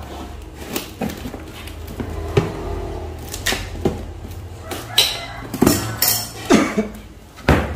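Cardboard parcels being handled and set down on a tile floor: a run of knocks and clatter with rustling of packaging, the loudest knocks in the last two seconds.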